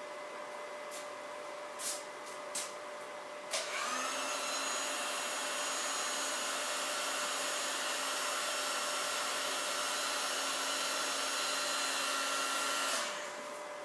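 A heat gun switched on about three and a half seconds in: its fan motor spins up, then runs with a steady whine for about nine seconds while shrinking heat-shrink tubing over the freshly soldered connector, and then switches off. Two light clicks come before it.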